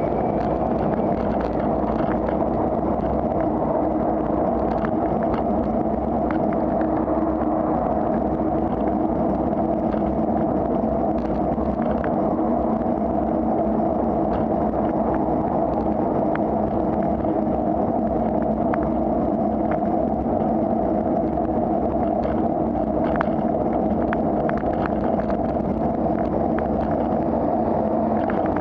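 Steady wind and road noise on a camera riding on a moving bicycle, with motor traffic on the road alongside and occasional short rattling clicks from bumps in the road surface.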